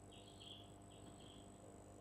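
Near silence: room tone with a low electrical hum and a faint high whine, with a few faint high chirps in the first second and a half.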